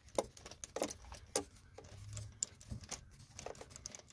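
Irregular light metallic clicks and clinks of a 12 mm universal-joint socket and extension being worked onto a bolt.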